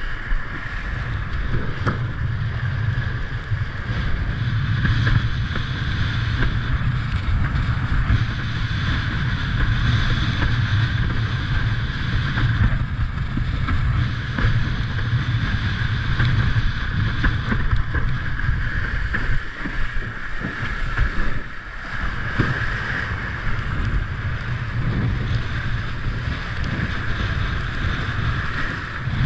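Wind buffeting the microphone over the rush and spray of water under a windsurf board planing across choppy water. The noise eases briefly about two-thirds of the way in.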